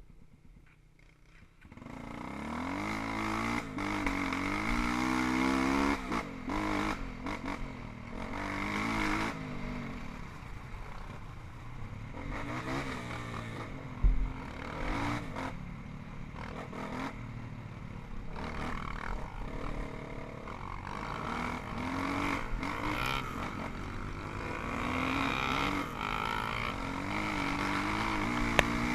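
Single-cylinder four-stroke dirt bike engine revving up and easing off over and over while riding a trail, with clattering knocks and one sharp thump about halfway through.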